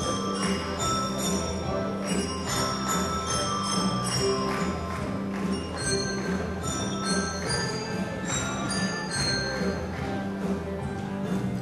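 A group of children playing a melody on small mallet-struck bar instruments, bright ringing notes in quick succession, over a steady low accompaniment.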